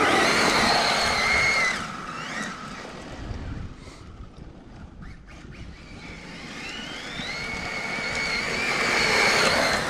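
Radio-controlled truck's brushless electric motor whining as it drives over dirt. The whine is strong at first and fades out about two seconds in as the truck drives off. It returns a few seconds later, rising in pitch and growing louder toward the end as the truck comes back.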